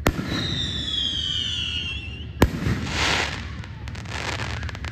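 Fireworks: a sharp bang, then a high whistle sliding slowly down in pitch for about two seconds, a second sharp bang halfway through, and crackling after it.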